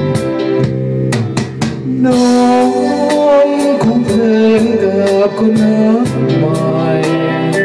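Live band playing: electric guitar and Korg keyboard over a steady drum beat, with a man singing from about two seconds in.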